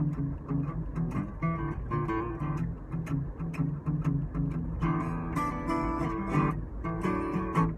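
Acoustic guitar playing a blues intro: a repeating low bass-note figure, with fuller strummed chords from about five seconds in.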